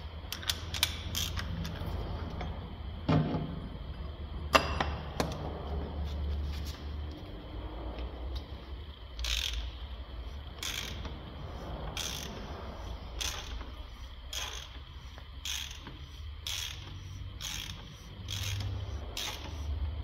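Ratchet wrench on a long extension turning the oil filter housing cap of a BMW X6M F86 from underneath, its pawl clicking. A few sharp knocks come first, then a regular run of clicks that gets quicker near the end.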